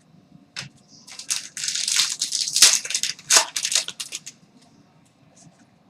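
Crinkling and rustling with a few clicks as trading cards and their packaging are handled, most dense about two to three seconds in.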